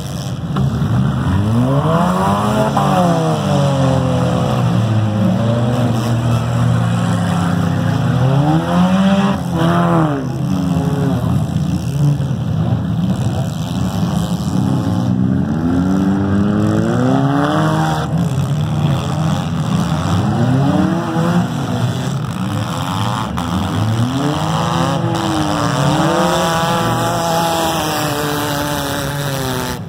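Several demolition derby cars' engines running hard together, revving up and down again and again over a steady engine din.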